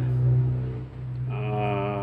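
Background ambient music: a steady low drone, with a held, slightly wavering tone coming in past the middle.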